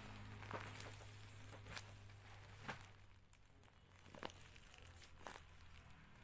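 Faint, scattered crinkles from a taped paper squishy being squeezed in the hands, about five short ones, over a low steady hum.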